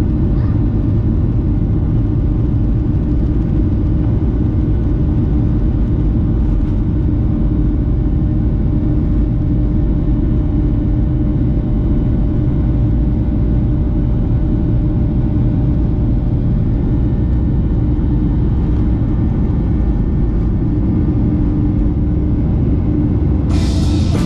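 Steady low rumble of engine and airflow noise heard inside the cabin of a Boeing 737-900ER airliner, with a faint steady hum over it.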